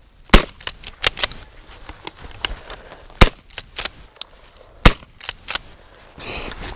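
Shotgun fired repeatedly at flushing quail: four loud, sharp shots over about five seconds, the first two less than a second apart, with fainter cracks between them.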